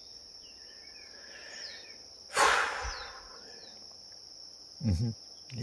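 Steady high-pitched insect drone with a few faint gliding calls. About two and a half seconds in comes a short, loud breathy rush of noise, like a close exhale, and near the end a brief voiced sound from a person.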